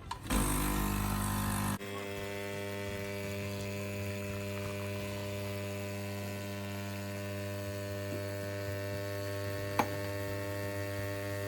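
Nescafé Dolce Gusto capsule coffee machine's pump running as it brews, humming steadily after a louder, rougher first second and a half. A single click near the end.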